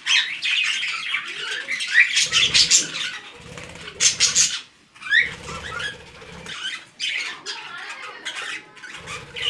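A flock of budgerigars in a wire cage chattering with rapid, continuous chirps, with a few short bursts of wing flapping.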